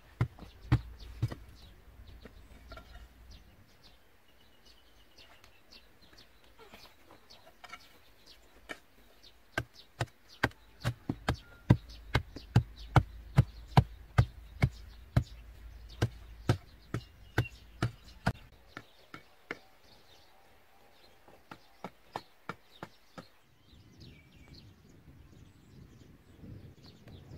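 Repeated sharp strikes of a hand tool chipping into hard, dry clay while digging, about one or two knocks a second. They come thickest in the middle and thin out near the end.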